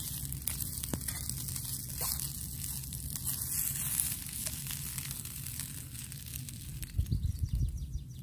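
Leftover chips and kebab meat frying in a steel pan over a campfire: a steady sizzle with small crackles, while a fork stirs the food in the pan. A few low rumbles about seven seconds in.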